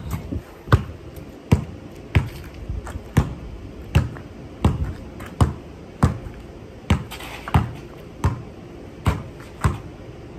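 A basketball dribbled on a concrete driveway: sharp bounces in a steady rhythm, about one every three-quarters of a second.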